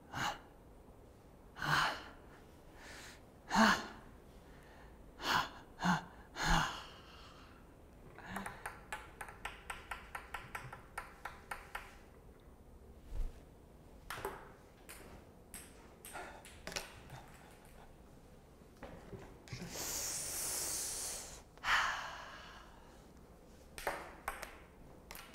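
Ping-pong ball clicking against paddles and a wooden tabletop: scattered single taps, then a quick rally of about five light clicks a second for several seconds. A long breathy puff of air comes near the end.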